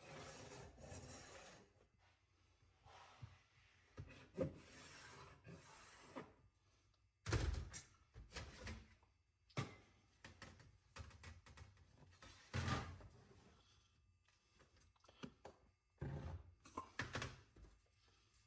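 Dividers scraping across sheet metal in short strokes while arcs are scribed to bisect a layout line, with a few dull knocks in between; faint.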